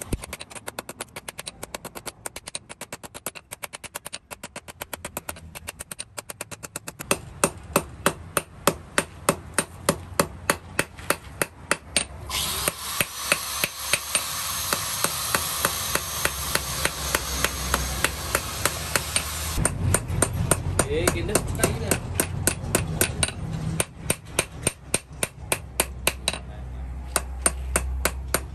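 Hand hammer striking a red-hot knife blade on a steel block anvil, quick even blows about three a second as the blade is forged to shape. For several seconds in the middle a steady hiss sits under the blows.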